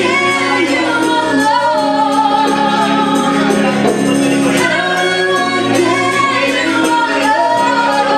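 A woman singing a rock ballad into a microphone over keyboard accompaniment with a steady light percussion beat, a man's voice joining in harmony.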